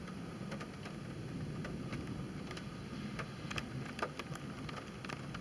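Scattered raindrops ticking irregularly on the car's body and windshield, over a steady low rumble.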